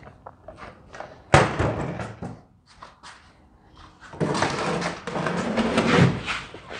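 A loud metal bang about a second and a half in, then, after a pause, a couple of seconds of scraping and clattering as a heavy bench vise is handled on the metal workbench.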